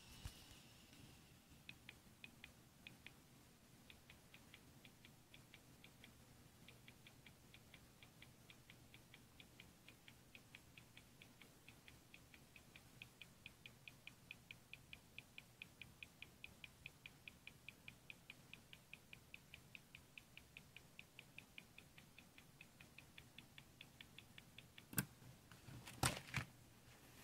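Dell 320n laptop ticking faintly and evenly, about three ticks a second, while its hard drive is being formatted. Two sharp clicks near the end.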